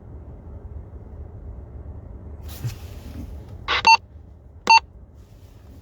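Handheld PMR446 radio giving two short electronic beeps or squelch bursts, a little under a second apart, about four seconds in, over a steady low rumble.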